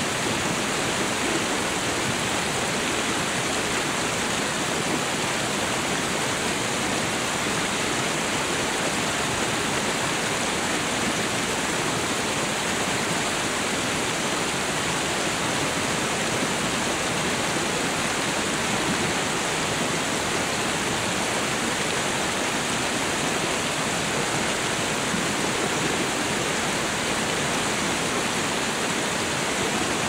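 Mountain stream rushing over rocks and shallow rapids: a steady, even rush of water.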